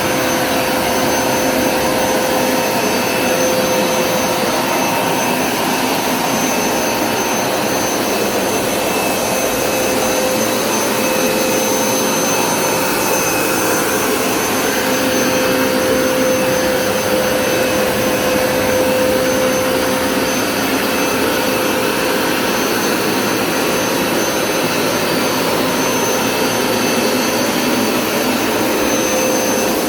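Hoover Smartwash Pet Complete carpet cleaner running steadily, its suction motor giving a constant whirring noise with a steady whine.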